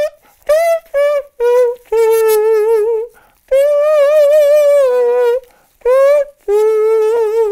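Comb and paper: a wooden comb with a slip of squared paper over its teeth, hummed into so the paper buzzes like a kazoo. It plays a simple folk-like tune in short phrases, quick notes and longer held ones with a wavering vibrato.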